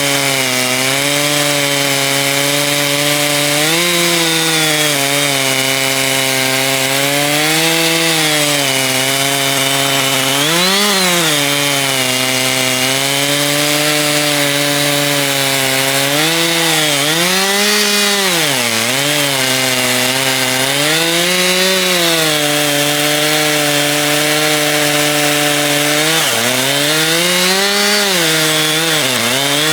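Chainsaw running at full throttle in an Alaskan chainsaw mill, ripping a log lengthwise into lumber. Its engine pitch sags and recovers several times as the chain loads up in the cut.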